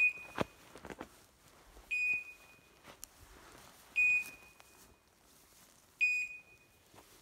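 A dog's beeper collar sounding one short, high electronic beep every two seconds, four in all: the fast steady rate a beeper gives when the setter stands still on point. A few footsteps through brush in the first second.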